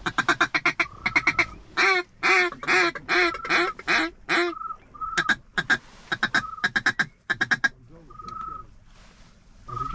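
Duck calls blown in the blind: a fast run of loud, sharp quacks for about four and a half seconds, then sparser quacks mixed with short whistle notes.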